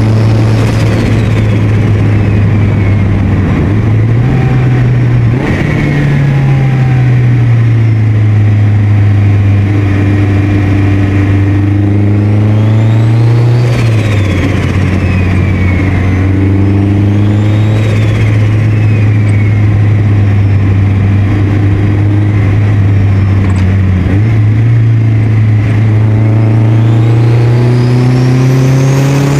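Big-turbo Mitsubishi Lancer Evolution VIII 4G63 engine driving under boost, its turbo whistle rising and then dropping away sharply several times as the throttle comes on and off. With the blow-off valve deleted, boost escapes back through the turbo on lift-off as compressor-surge flutter.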